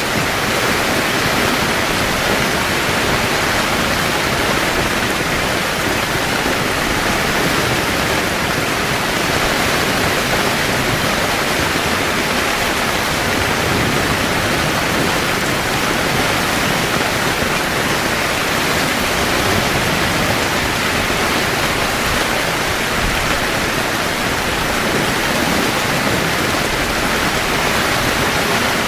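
Heavy rain falling steadily on a camping tent, an even hiss with no thunderclaps.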